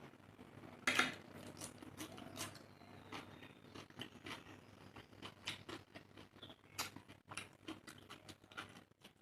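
Close-miked eating sounds of a person chewing rice and curry: irregular wet clicks and crackles from the mouth, the loudest about a second in.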